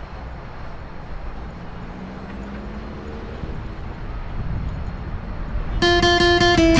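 Steady city traffic ambience, a low rumble with a faint hiss. About six seconds in, loud plucked guitar notes come in over it.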